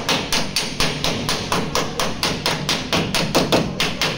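Ball-peen hammer rapidly striking the crumpled sheet-metal body of a car, about five blows a second, beating out accident damage around the roof and rear door pillar.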